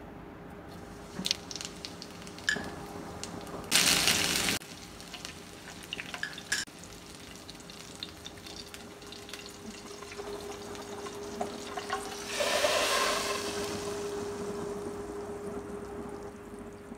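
Cumin seeds, dried red chillies and green chilli crackling and sizzling in hot ghee in a frying pan as a tadka is made, with a sharp burst of sizzling about four seconds in. Near the end a louder hiss rises and slowly fades as the hot tadka is poured over the dal. A faint steady hum sits underneath.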